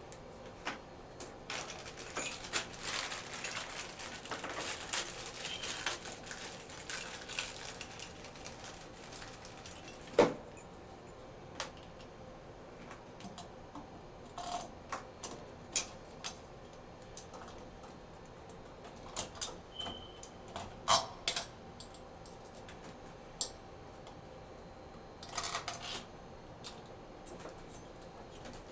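Metal shower trim parts and screws being handled and fitted: a run of small clicks, taps and rattles, with one louder knock about ten seconds in and a couple of brief metallic rings.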